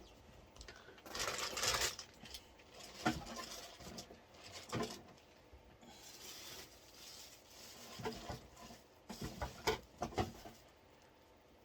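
Handling noise from power-supply cables and their packaging being gathered up: rustling with scattered light knocks and clicks.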